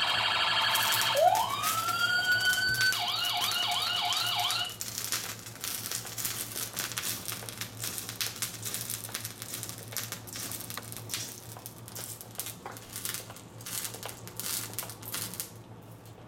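A toy fire truck's electronic siren sound effect. It starts with a fast warble, rises into a wail, then switches to quick repeated yelps and stops after about four and a half seconds. Quieter irregular crackling and clicking follows for about ten seconds.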